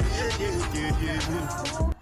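Music with a steady beat and a vocal line over it, cutting off abruptly at the end.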